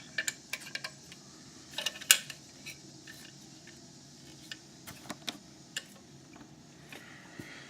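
Light metallic clicks and ticks of a hook pick and tension wrench going into a Euro cylinder lock's keyway and starting to work the pins, scattered and irregular, with the sharpest click about two seconds in.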